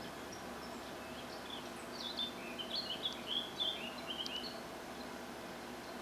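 Songbird twittering: a quick run of short high chirps starting a little over a second in and lasting about three seconds, over a steady low background hum. The birdsong comes from a garden wildlife video playing on a computer monitor.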